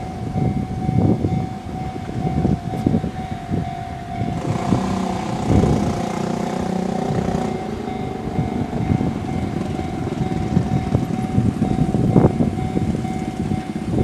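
Japanese railway level-crossing alarm ringing steadily, over low gusty rumble of wind and traffic, with a louder rushing passage in the middle.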